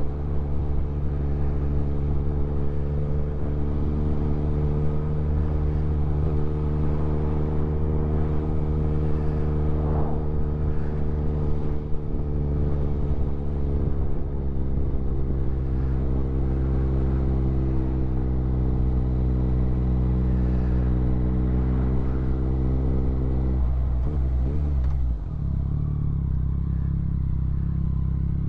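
Motorcycle engine running at steady revs while riding. About three-quarters of the way through, the revs drop and the engine settles at a lower, steady note.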